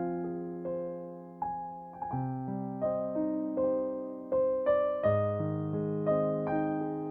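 Soft solo piano music playing slow sustained chords and melody notes, each note struck and left to fade.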